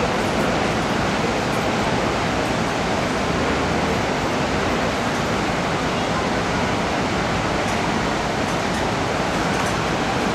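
Steady rushing of the Niagara River's whitewater rapids: a constant, even roar of water with no breaks or changes.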